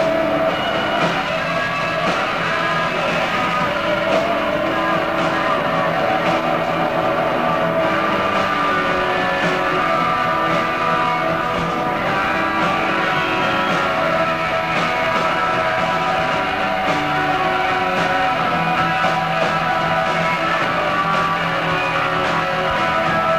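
Live rock band playing loud, electric guitars holding long, steady ringing notes.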